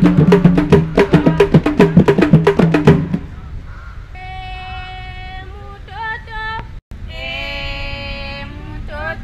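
Tufo music: hand drums beaten in a fast, driving rhythm under group singing, stopping abruptly about three seconds in. Then voices hold long, high sung notes with a wavering pitch, broken by a brief dropout.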